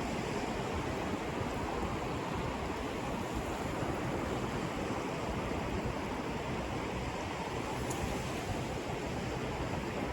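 Ocean surf washing onto the beach, a steady even rush of noise.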